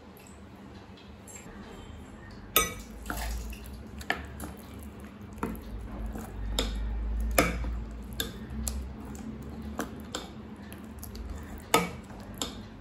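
A steel spoon stirring thick wheat-flour batter with chopped vegetables in a glass bowl, clinking against the glass at irregular intervals, the loudest knock about two and a half seconds in.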